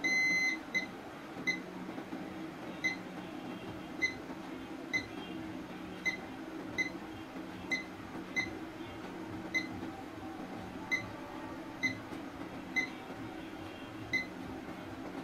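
Digital multimeter in continuity (diode/beep) mode beeping as its probes touch components on a phone motherboard: one beep of about half a second at the start, then short chirps roughly once a second. Each beep signals a near-zero-ohm path, showing that the component is not open.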